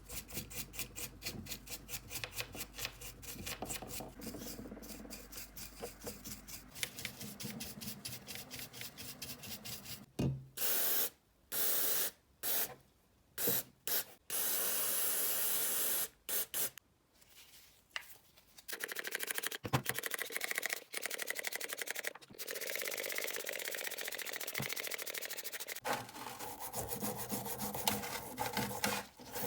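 Hand abrasive work on a part: quick back-and-forth rubbing strokes, a few per second, like sanding or filing. From about ten seconds in, short bursts of hiss that stop abruptly, then denser continuous scraping.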